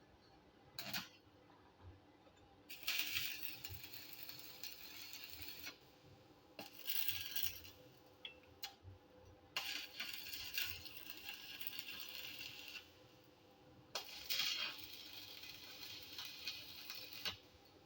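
Electric arc welding in short runs: four hissing, crackling bursts of a few seconds each with pauses between, as steel strip fins are welded onto a hollow steel roller. There is a brief sharp sound about a second in.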